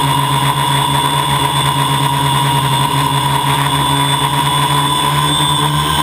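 Homebuilt drone's motors and propellers running steadily in flight, a loud whine made of several steady tones over a rushing hiss, recorded close up by the camera on board.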